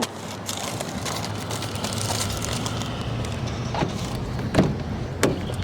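A car engine running steadily, a low even hum with a few faint knocks over it.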